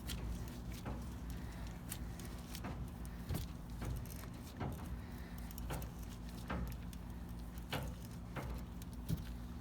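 Sharp metallic clicks, about one every second, from a wrench turning the screw of a ball joint press as it presses a new bushing into a leaf spring eye, over a steady low hum.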